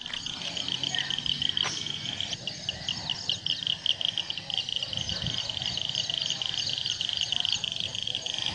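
Insects chirping: a steady high-pitched chorus of rapid pulses over a low background rumble.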